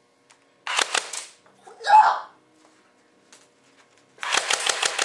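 Toy gun firing rapid bursts of shots at a person as a pain-resistance test. A short burst comes about half a second in, then a loud pained yelp, then a longer run of about eight shots a second begins near the end.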